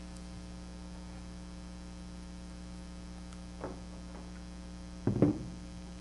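Steady mains hum, with a light knock about three and a half seconds in and a louder, quick cluster of knocks about five seconds in. The knocks come from the mill's metal table and saddle assembly being handled and set on the wooden bench.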